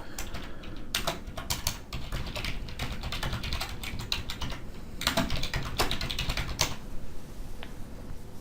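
Typing on a computer keyboard: a fast, irregular run of key clicks that stops about seven seconds in.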